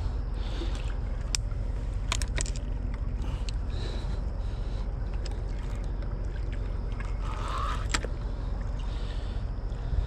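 Steady low rumble of ship engines on the river, with a few sharp clicks from a spinning reel and tackle as a catfish is reeled in.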